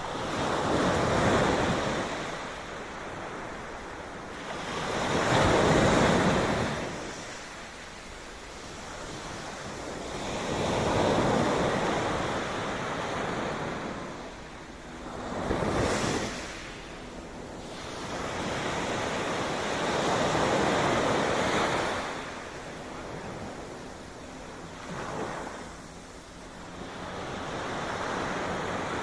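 Sea waves breaking and washing back, each surge swelling and fading about every five seconds, with one sharper crash partway through.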